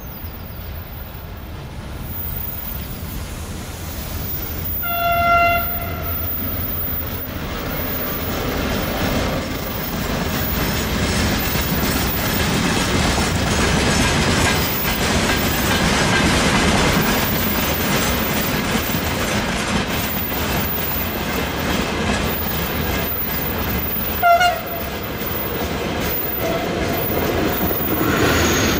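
Siemens ER20CF diesel locomotive hauling a freight train past: one horn blast of about a second, about five seconds in, then wagons clattering over the rails, growing louder. A short second horn toot comes near the end.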